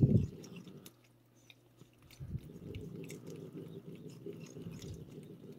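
Cat licking and chewing a lickable paste treat squeezed from a hand-held Churu tube, in small irregular wet smacks and clicks. A brief louder low bump right at the start.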